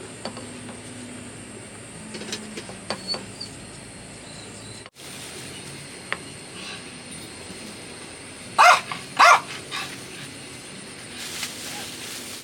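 A dog barking twice in quick succession, with a few fainter sounds before and after, over a steady high hiss.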